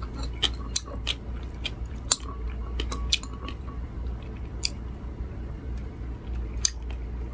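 A person chewing salted, pressed cucumber pickle with the mouth closed: scattered short wet clicks and crunches, more of them in the first few seconds, over a low steady hum.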